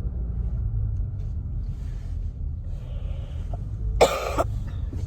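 Steady low rumble of a car cabin while driving, with one sharp cough about four seconds in.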